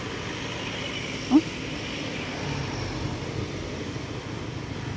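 Steady rumble of road traffic, swelling slightly in the middle, with one short vocal sound about a second and a half in.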